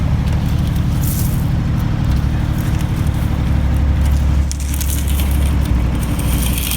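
A heavy machine's engine running steadily with a low drone, while a lute scrapes across loose hot asphalt in a few gritty strokes, about a second in and again over the last couple of seconds.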